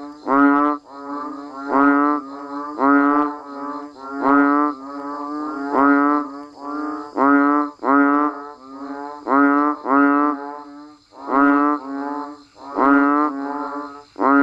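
Banded bullfrogs (Kaloula pulchra) and other frogs calling in chorus: low, moo-like calls that repeat about once a second and overlap, over a faint steady high buzz.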